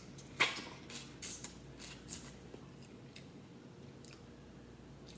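Cooked crab-leg shell crackling and snapping as it is broken apart: a quick series of sharp cracks in the first two seconds, the first the loudest, then fading to a few light crackles.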